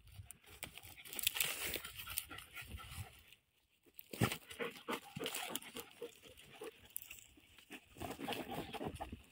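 Two dogs sniffing and snuffling with their noses pushed into a hole in dry stubble, with rustling and crunching of dry straw and soil in irregular bursts. There is a brief lull about three and a half seconds in.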